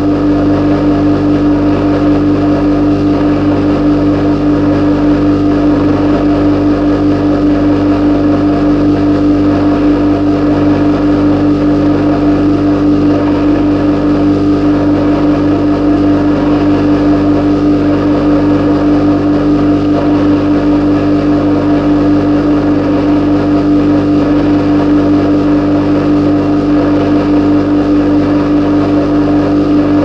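Processed field recording of a refrigerator's hum: a loud, steady drone with one strong mid-pitched tone and several fainter steady tones above and below it.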